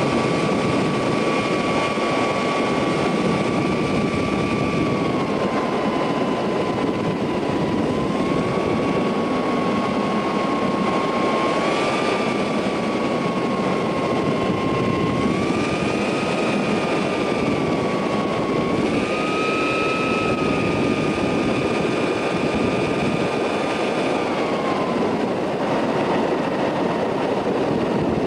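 Ultralight aircraft's engine and propeller heard from on board under heavy wind rush during a landing approach. The engine note is steady, rising and falling a little several times, and drops near the end as the aircraft comes over the runway.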